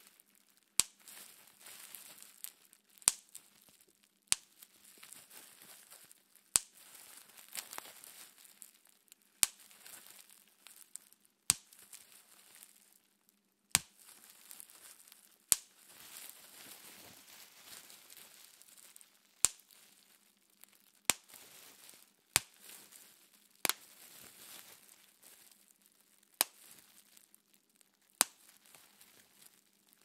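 Plastic bubble wrap being twisted and squeezed between the fingers: sharp single pops as bubbles burst, one every one to four seconds, with crinkling and rustling of the plastic between them.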